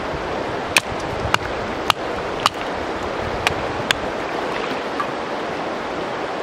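Six sharp wooden knocks, four about half a second apart and then two more a second or so later, as a wooden baton strikes the back of a knife blade to split a stick into kindling. A river rushes steadily underneath.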